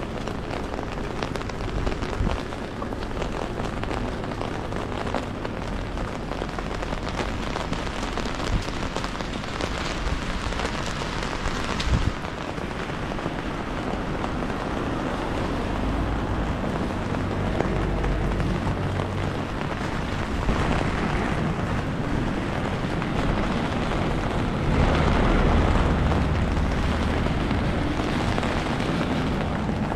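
Steady rain falling on the street, an even hiss with many fine drop ticks. A single sharp knock comes about 12 seconds in, and a low rumble swells twice in the second half.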